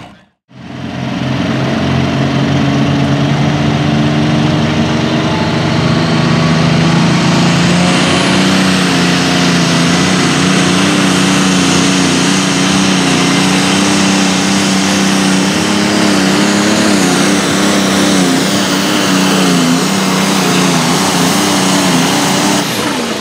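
Super stock pulling tractor's engine at full throttle while it pulls the weight-transfer sled, loud and continuous. Its pitch climbs slowly over the first several seconds, then wavers as it pulls down the track. A thin high whine comes in about eight seconds in and holds until the engine falls off near the end.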